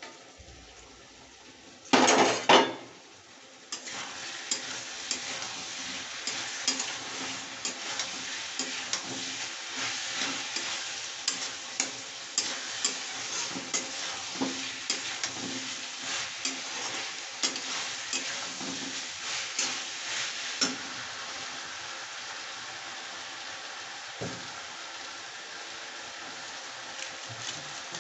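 Potatoes and peas sizzling in a kadai while a steel spatula stirs them, clicking and scraping against the pan, with a loud metal clatter about two seconds in as the steel lid is set aside. The stirring stops about three-quarters of the way through and the frying sizzle carries on.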